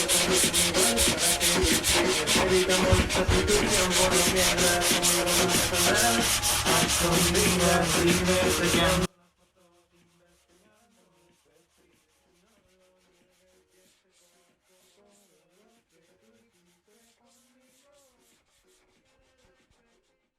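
Rapid, rhythmic rubbing strokes on the body-filler repair of a car fender, with a steady tone running underneath. The sound cuts off abruptly about nine seconds in, leaving only very faint sound.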